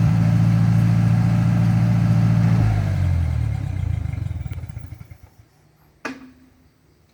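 Ford 8N tractor's four-cylinder gasoline engine running steadily, then shut off about two and a half seconds in, slowing and dying away over the next two seconds or so. A single sharp click follows about a second later.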